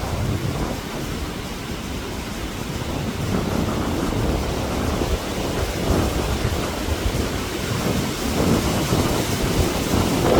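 Strong wind buffeting the microphone: a loud, gusty low rumble that swells and eases.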